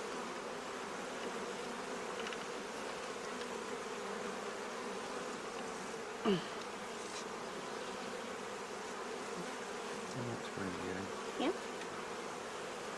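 Italian honeybees buzzing steadily around an open hive being split. Twice, about six seconds in and again near the end, a single louder buzz slides in pitch.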